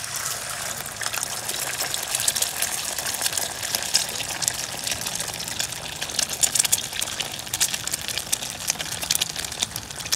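Beaten egg deep-frying in hot oil in a small pot, a loud, steady sizzle with a dense crackle of spitting oil. This is a Thai-style puffy omelette cooking.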